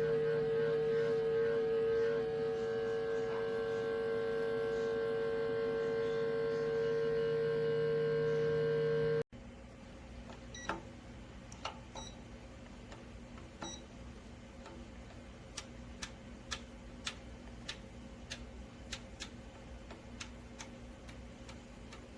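A steady held tone for about nine seconds, cut off abruptly. Then, over a quiet background, three short beeps from the air fryer toaster oven's digital control panel, followed by a run of quick sharp clicks from its controls being worked.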